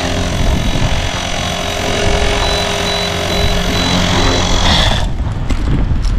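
Blade 360 Fusion electric RC helicopter running with a loud whine and gear grind from sand in its spur gear. About five seconds in, the whine cuts off abruptly.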